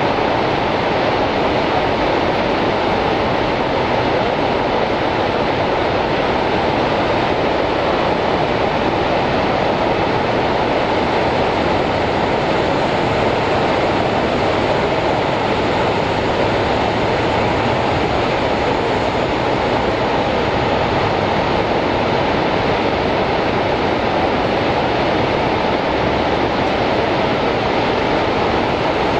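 The American Falls at Niagara: a large waterfall plunging onto rocks, heard as a loud, steady, even rushing noise that does not change.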